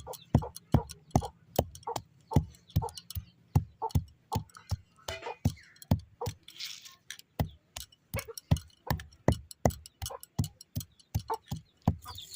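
A quick, uneven run of sharp taps or knocks, about three to four a second.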